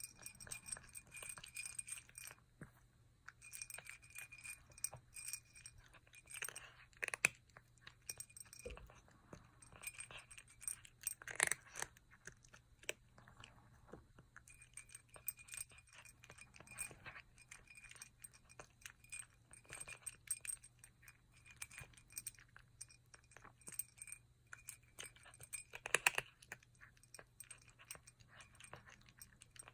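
Kitten eating dry kibble: irregular crunching and clicking of the pieces, with a high metallic jingling that comes and goes.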